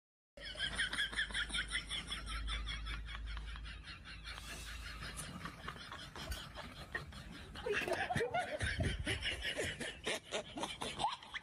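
High-pitched giggling in quick, rapid bursts, turning into louder, fuller laughter about eight seconds in.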